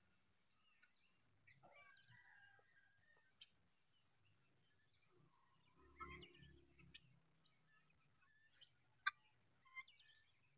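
Faint, scattered short chirping calls from a foraging flock of helmeted guineafowl, with a single sharp click about nine seconds in.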